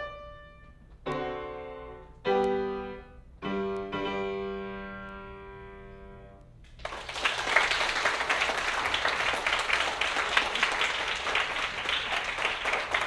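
Grand piano playing three closing chords about a second apart, the last held and fading as the piece ends. Then an audience breaks into applause just past halfway and keeps clapping.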